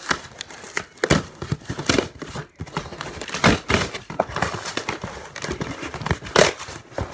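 Packaging crinkling and rustling with irregular knocks as a new starter motor is handled and unwrapped.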